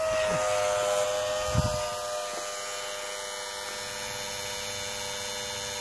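Drummond 1/10 hp transfer pump's brushed electric motor running with a steady whine, its pitch settling slightly lower just after the start. It is self-priming, pulling water up through a dry 40-foot hose before any flows. One soft low thump about a second and a half in.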